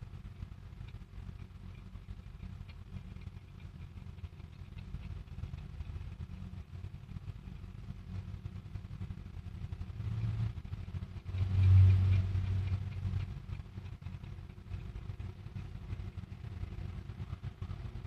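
Low, steady rumble of motor traffic, with one vehicle passing louder about twelve seconds in.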